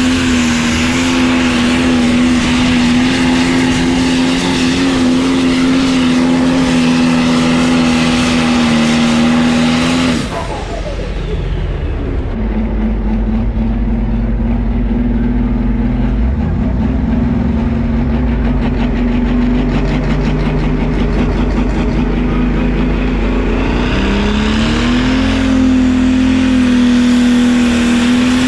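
Pro Stock turbo-diesel pulling tractor engines at close range: one tractor runs flat out at a steady high pitch, then winds down sharply about ten seconds in. A second Pro Stock tractor runs lower for a while, then winds back up to full throttle near the end as it pulls the sled.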